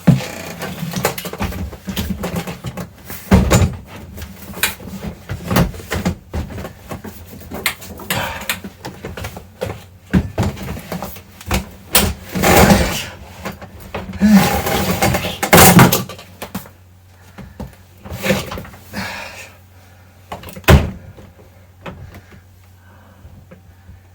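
Irregular knocks, clunks and rattles of dishwasher parts and panels being handled and fitted, loudest in the first two-thirds, then a few single knocks over a faint low hum.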